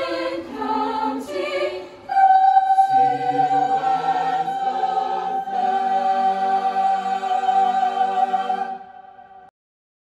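High school a cappella choir singing unaccompanied: a few moving notes of the closing phrase, then the final chord held for about seven seconds, with the high voices strongest on top, before a sudden release into silence near the end.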